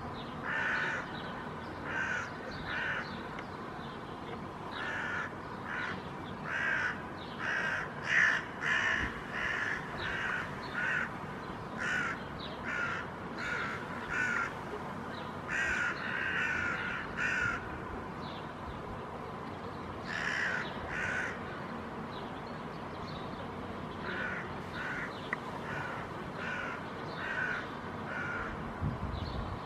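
A pair of hooded crows calling repeatedly in short runs of caws, scolding a dog that is near their fledgling, which has left the nest but cannot yet fly.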